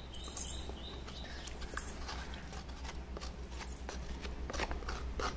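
Steel spoon scraping soft tender-coconut flesh from the shell, with scattered light clicks and taps as the scooped flesh is knocked into a steel bowl, over a faint steady low hum.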